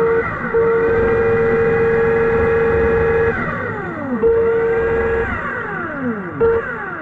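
Underwater scooter (diver propulsion vehicle) motor whining, its pitch rising, holding, then falling away about halfway through and again near the end as it speeds up and slows down, with a steady hum that cuts in and out.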